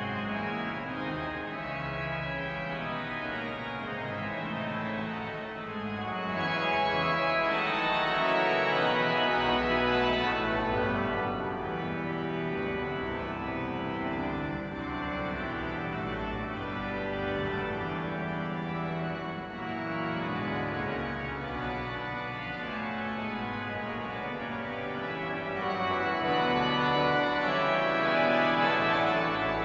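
Cathedral pipe organ playing the closing voluntary of the service: slow held chords over sustained pedal bass notes, growing louder about six seconds in and again near the end.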